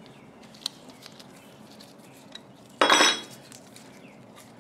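Small metal parts of an HVLP spray gun clinking as the gun is taken apart, with light ticks and one louder, ringing metallic clatter about three seconds in.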